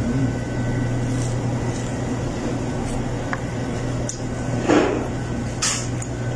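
Steady low hum of an air conditioning unit, with two short noises about two-thirds of the way through as fried chicken is handled on the plate.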